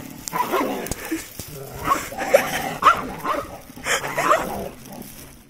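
A dog barking in a string of short, repeated barks and yips.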